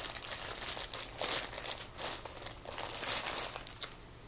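Clear plastic bags holding live aquarium plants crinkling in the hands as they are handled, in irregular bursts that die down about four seconds in.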